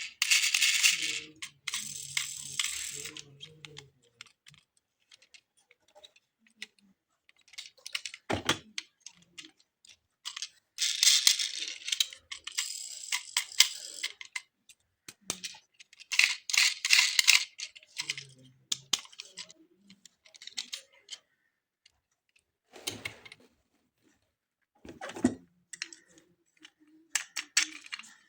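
Hands unboxing toy cars: bursts of crackly rustling from the packaging, with a few sharp knocks and small plastic rattles from the toys being handled, separated by pauses.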